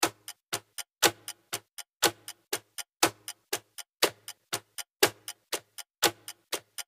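Background music: a sparse percussion beat of sharp clicks, with a heavy hit and a low thump once a second and lighter, ticking clicks in between.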